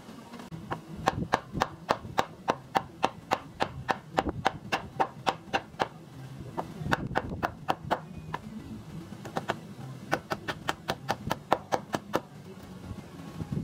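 Hammer blows on the wooden framing of a garage front, in quick runs of about three strikes a second with two short pauses between runs, typical of driving nails.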